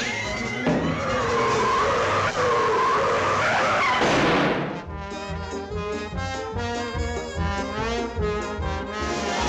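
Brassy orchestral cartoon score. For the first four seconds or so a noisy sound effect with a wavering tone runs over it, then busy orchestral music carries on.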